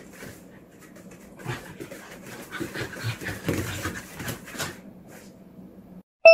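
A Shetland sheepdog close to the microphone, making irregular breathy panting sounds over a faint steady hum. Near the end the sound cuts off abruptly and a bright chime begins.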